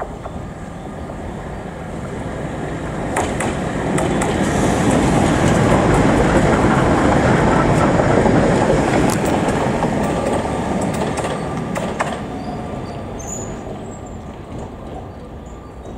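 KT4UA "VinWay" articulated tram passing by on its rails. The rumble of wheels on track builds as it approaches, is loudest for several seconds as it goes past, then fades away, with a few sharp clicks along the way.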